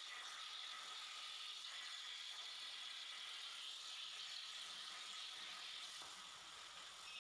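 CNC plasma cutter's torch cutting steel plate: a steady hiss that eases off about six seconds in as the cut ends.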